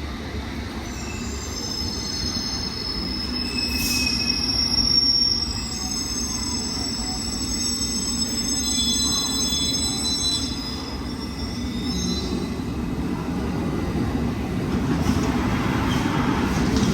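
London Underground S7 Stock train arriving: a steady low rumble of the running train, with several high, steady squealing tones over it that die away about twelve seconds in.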